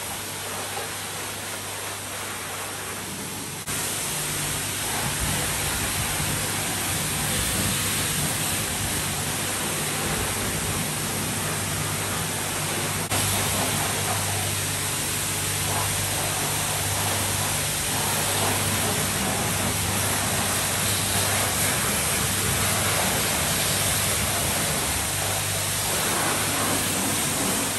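Car wash machinery running: a steady rushing noise over a low steady hum, stepping up in level about four seconds in and again about thirteen seconds in.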